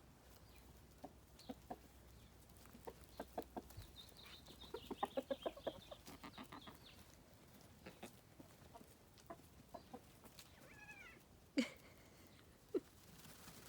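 Chickens clucking quietly in short scattered clucks, with a quick run of clucks about five seconds in and a sharp knock near the end.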